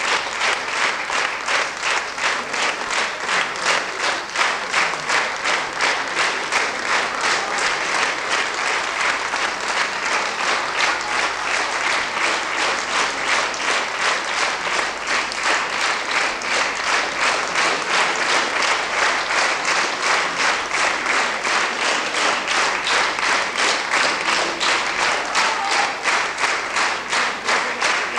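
Large audience applauding, clapping together in a steady rhythm of about two claps a second.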